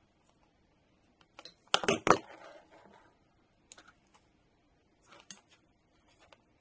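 Small scattered clicks and ticks of insulated wires being bent and handled. About two seconds in comes a short loud clatter of a few knocks, a pair of pliers set down on the workbench.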